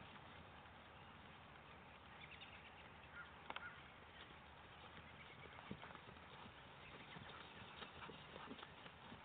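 Faint hoofbeats of a horse circling on grass at a trot and canter: irregular soft thuds and taps over a steady hiss, with the sharpest taps a little after three seconds in.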